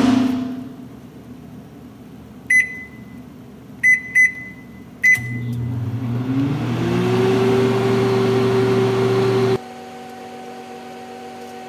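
Panasonic microwave oven: the door shuts with a sharp clunk, four keypad beeps follow, then the oven starts, its low hum joined by a fan whirring up in pitch and settling into a steady run. Near the end the sound drops abruptly to a quieter steady hum.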